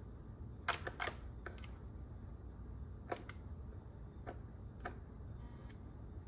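A scattering of short light clicks, several close together near the start and the rest spaced out, over a low steady background hum.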